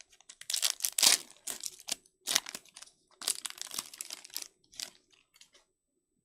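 Crinkling and rustling of a foil trading-card pack wrapper being handled, in irregular bursts for about five seconds.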